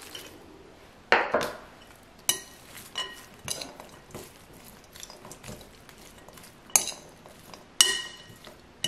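Metal fork stirring chopped walnuts into shredded chicken in a glass bowl, with soft scraping and irregular sharp clinks of the fork against the glass.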